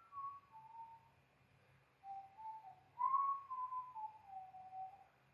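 A person whistling a slow tune, one clear note at a time, with a short pause about a second in before it picks up again with longer, gently gliding notes.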